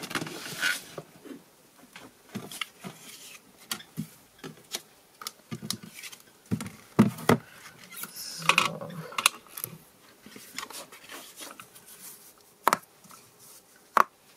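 Handling of a stamping platform: scattered sharp clicks and knocks from its hinged clear lid and the small magnets holding the card, with rubbing and sliding of card on the mat between them.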